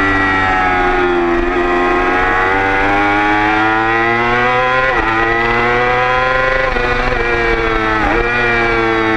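Onboard sound of a track-day motorcycle's engine pulling hard, its pitch climbing steadily under acceleration, with sharp drops as it changes up a gear about five seconds in and again near the end.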